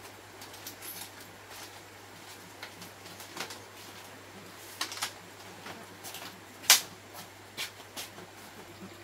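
Split-bamboo strips of a woven lattice panel clicking and clattering irregularly as the panel is handled and stood upright, with one sharp knock about three-quarters of the way through.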